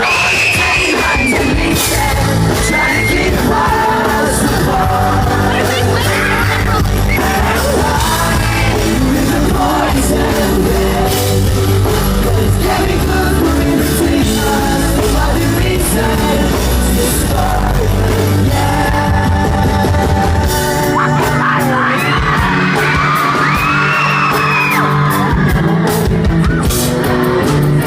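Live pop-rock band playing a song with lead vocals, bass and drums, amplified through a loud PA, with fans yelling and whooping over it.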